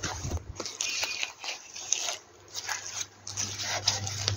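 Rustling and crinkling of a child's nylon parachute-fabric costume jacket being handled, its slippery lining gripped and turned over, with a few small clicks and scrapes.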